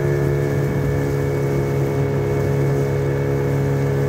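Motorboat engine running at a steady, unchanging speed, a constant hum.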